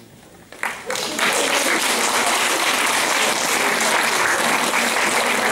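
Audience applauding: a brief hush, then scattered claps that swell about a second in into steady, full applause.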